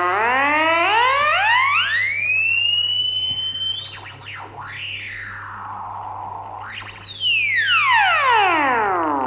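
Siren-like electronic alarm tone rising in steps for about four seconds. It then jumps higher and holds while other tones sweep down and back up across it, before sliding steeply down in pitch near the end.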